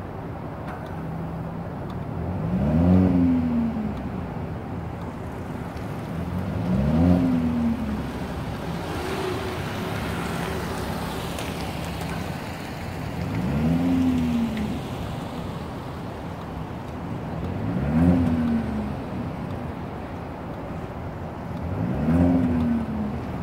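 2017 Volvo V90 Cross Country T6's turbocharged and supercharged 2.0-litre four-cylinder engine idling at the exhaust. The throttle is blipped five times, each rev rising and falling back to idle within about a second and a half.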